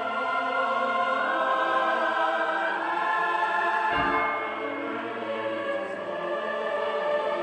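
Church bells tolling in mourning, their ringing tones long and overlapping, with a fresh strike about four seconds in.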